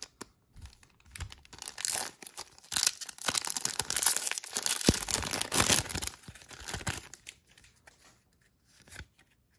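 Foil Magic: The Gathering booster pack wrapper being torn open and crinkled by hand: a run of crackling tearing from about two seconds in, dying away after about seven seconds.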